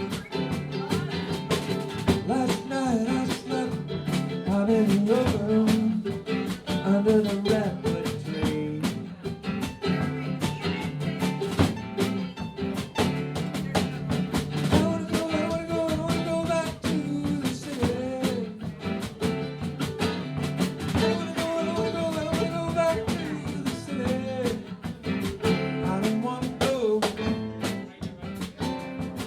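A live band playing a song: guitars over a drum kit, with a melodic line that bends in pitch above the chords.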